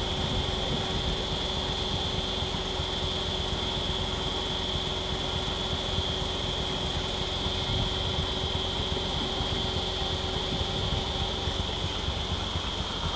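Vehicle engine idling with a steady low rumble, alongside a constant high-pitched drone.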